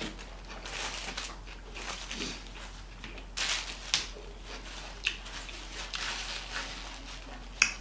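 Eating sounds: chewing and the rustle of paper food wrappers, in short irregular bursts, with a sharp click about four seconds in and another near the end.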